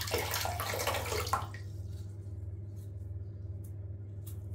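Bathwater splashing and running off a hand as it is lifted out of the bath, for about a second and a half, then a few faint drips over a steady low hum.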